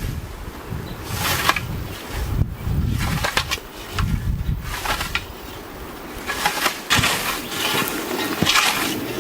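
European scythe blade swishing through tall grass and weeds in repeated strokes, about one a second, with wind rumbling on the microphone.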